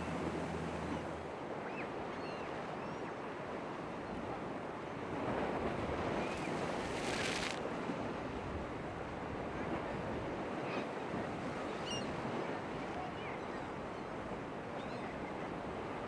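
Surf and wind noise at an ocean inlet, an even rushing wash. A low, steady engine drone stops about a second in, and around the middle the water swells into a louder rush that ends in a short hiss.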